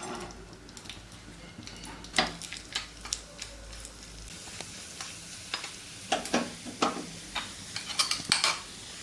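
A spoon stirring thick chocolate rice kheer in a pan, with scattered sharp scrapes and knocks of the spoon against the pan.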